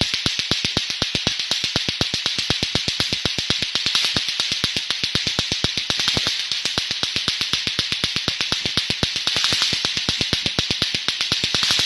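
A rapid, very even train of clicks, about eight to ten a second, over a steady high hiss, of the kind played as a space recording or sonification of radio signals.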